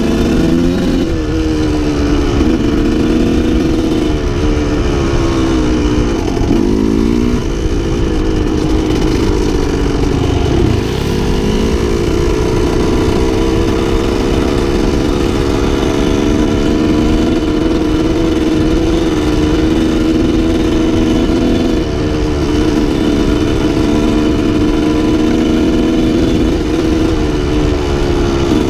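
1987 Yamaha YZ125's two-stroke single-cylinder engine running under way on a dirt trail, its pitch rising and falling as the throttle is opened and rolled off, with several brief dips where the revs drop.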